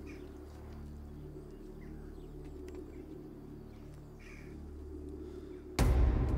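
Faint bird chirps over a steady low drone. Near the end comes a sudden loud hit, and loud noise carries on after it.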